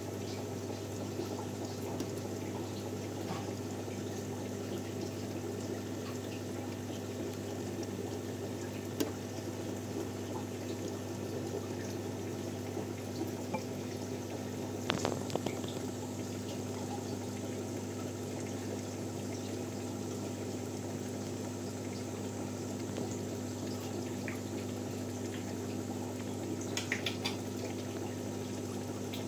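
Aquarium pump running: steady bubbling and trickling water over a constant low hum. A short cluster of clicks sounds about halfway through and again near the end.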